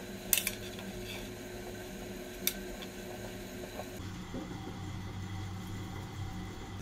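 A spoon scraping chopped greens off a plate into a clay pot, with a couple of sharp clicks of metal on china near the start and another about two and a half seconds in, over a steady low hum.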